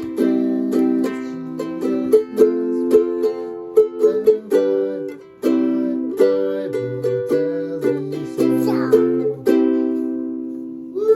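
Chords strummed on a small-bodied acoustic string instrument, each strum ringing on and fading before the next, with the lowest note shifting from chord to chord.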